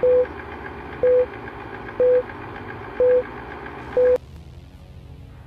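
Film-leader countdown sound effect: five short, loud beeps one second apart over the steady clatter of a running film projector. The clatter cuts off suddenly just after the last beep.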